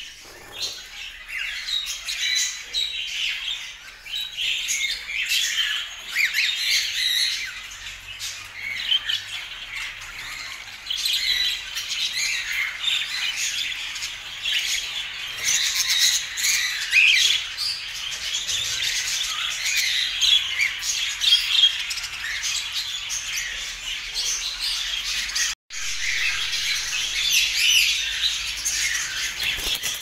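Caged cockatiels chirping and squawking, many calls overlapping without pause. The sound cuts out for an instant about three quarters of the way through.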